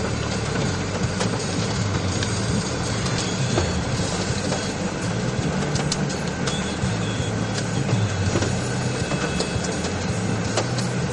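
Hail and rain pelting a vehicle's roof and windows: a dense, steady clatter of small hits over a low drone from the vehicle.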